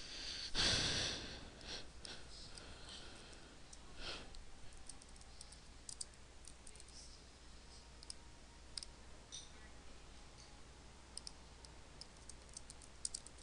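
Faint, scattered clicks of a computer keyboard and mouse as text is typed into a field. About a second in there is a louder short rush of noise.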